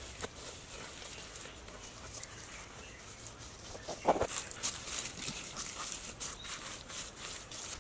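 Mud mixed with straw being scooped up and packed by hand into a bamboo wall frame: soft handling and rustling, with one louder slap about four seconds in and a run of small crackles after it.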